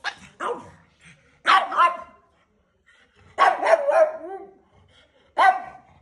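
Dog barking: short, sharp barks in separate bursts with pauses between them, including a quick run of several barks about three and a half seconds in.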